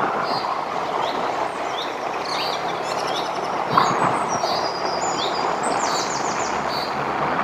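Steady rushing noise of wind and travel while moving, with birds chirping again and again over it and a quick trill about six seconds in.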